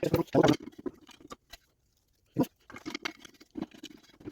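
Irregular light clicks, taps and rustles of hand tools and small metal engine parts being handled, with a near-silent pause about halfway through.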